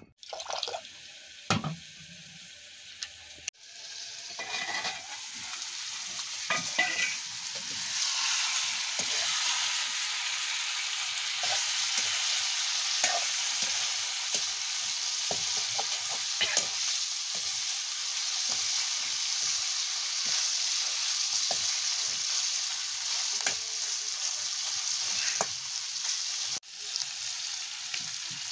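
Curry frying in hot oil in a pan, sizzling steadily as it is stirred, with scattered knocks of the spoon against the pan. The sizzle is softer for the first few seconds, then builds and holds.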